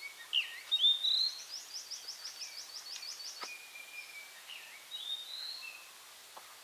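Birds calling, with clear whistled notes that slide up and down, and a fast run of high, even chirps, about seven a second, from about a second in for some two seconds.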